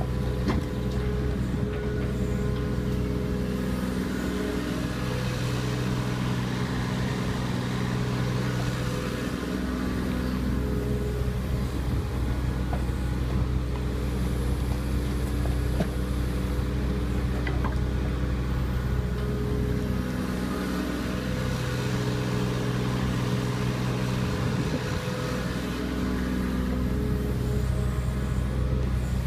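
Kubota U27-4 mini excavator's diesel engine running while it digs. Its note shifts twice as the hydraulics take load, with a few faint clicks over it.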